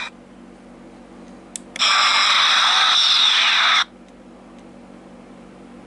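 A click, then a two-second electronic sound effect from a Klingon Bird of Prey replica toy's built-in sound chip: a hiss with a falling tone that starts and stops abruptly.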